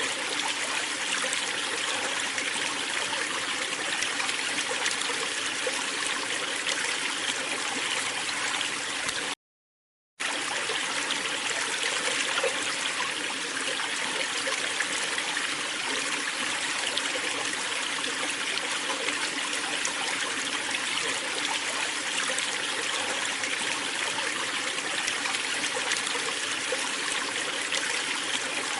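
Waterfall water rushing and splashing steadily. The sound cuts out completely for under a second about nine and a half seconds in, then resumes unchanged.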